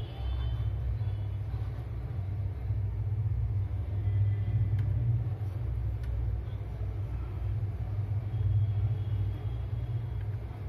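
Steady low background rumble with no clear source, rising and falling a little in loudness.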